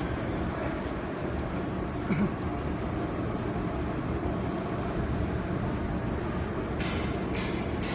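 Pastry production line machinery and its conveyor belt running with a steady mechanical din. There is a brief louder knock about two seconds in and a few short hissing bursts near the end.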